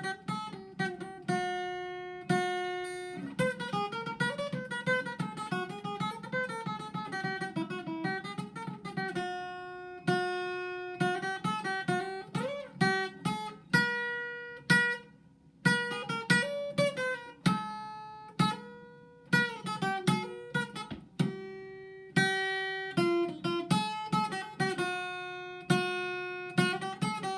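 Solo acoustic guitar music: plucked notes and strums that ring and fade, with a short pause about halfway through.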